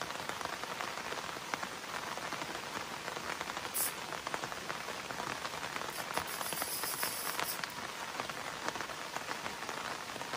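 Steady rain falling on the river and the surroundings: a dense hiss of countless small drops. A short high hiss cuts in about four seconds in, and a longer one from about six to seven and a half seconds.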